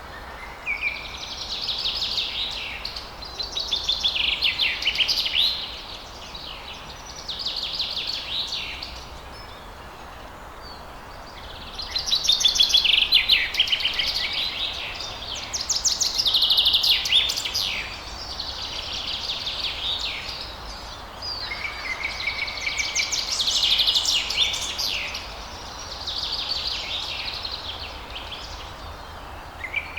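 Dawn birdsong: a songbird singing about nine phrases of quick, high notes, each a second or two long with short pauses between. A few phrases open with a held whistle. A steady faint hiss of outdoor background runs underneath.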